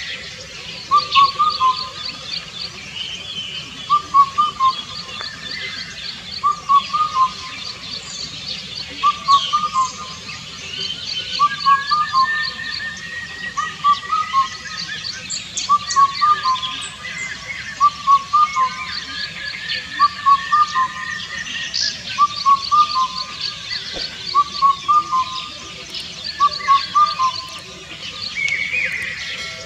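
Indian cuckoo singing its four-note call, the last note lower, repeated about every two seconds. Other birds chirp and trill more faintly at a higher pitch in the background.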